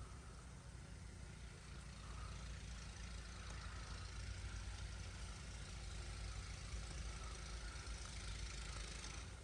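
Strong storm wind blowing: a steady low rumble on the microphone under a hiss that swells from about two seconds in and cuts off suddenly at the end.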